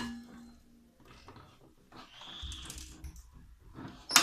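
Hard plastic Wiha tool case being handled and turned over: plastic rubbing and scraping with small clicks, a brief high squeak about two seconds in, and a sharp knock near the end.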